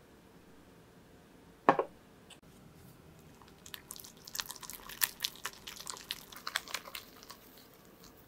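Wire balloon whisk beating softened butter and vanilla extract in a glass mixing bowl: a quick, irregular run of clicks and squishes as the wires hit the bowl and work through the butter. A single sharp knock comes just under two seconds in, before the whisking starts.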